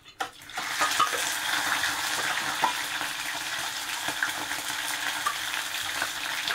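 Trout frying in hot oil: a steady sizzle with small crackles and pops, coming in about half a second in.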